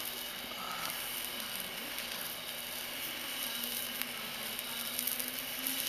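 Steady hiss of a jeweller's gas torch flame heating a flux-coated twisted-wire billet, with a few faint ticks, while the flux melts ahead of soldering.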